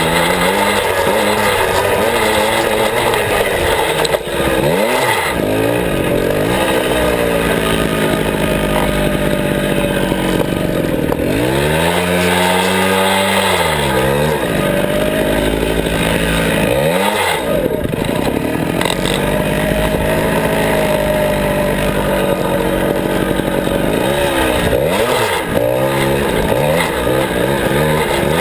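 Onboard sound of a 49cc Suzuki minicross mini dirt bike's small single-cylinder engine being ridden off-road, its revs rising and falling over and over as the throttle is opened and closed.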